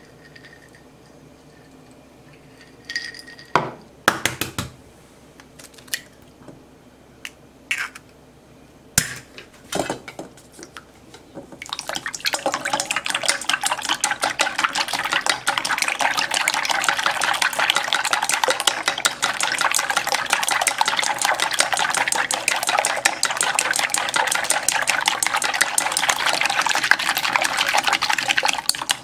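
A few separate knocks and clinks, then, about twelve seconds in, chopsticks beating eggs in a stainless steel bowl: fast, steady clicking of the chopsticks against the metal.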